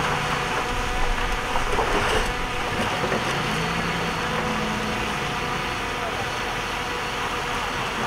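Diesel engine of a Shantui bulldozer running steadily at work, its pitch rising a little about three seconds in, with a brief higher-pitched squeal about two seconds in.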